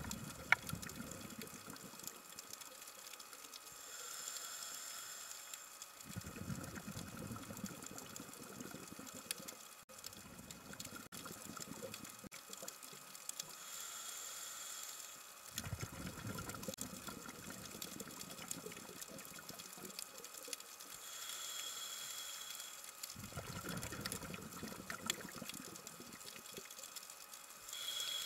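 Underwater sound of a diver breathing through a scuba regulator: a hiss on each inhale, then a longer rumble of exhaled bubbles, about four breaths roughly eight seconds apart.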